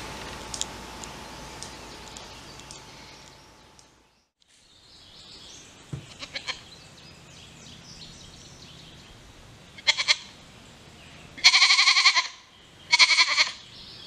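Baby goat bleating three times near the end, the middle bleat the longest and loudest, a kid calling for its mother. Faint woodland ambience with bird chirps underneath.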